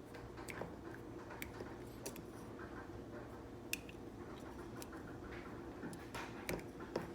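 Scattered small clicks and taps of plastic parts being handled and fitted: the pieces of a unicoupler repair kit being tried on a portable dishwasher's hose coupler. A faint steady hum sits underneath.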